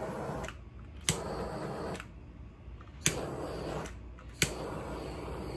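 Handheld butane kitchen torch firing in short spurts over wet acrylic pour paint to bring up cells. A sharp click about a second in, again about three seconds in and near the end, each followed by the flame's steady hiss, which cuts out between spurts.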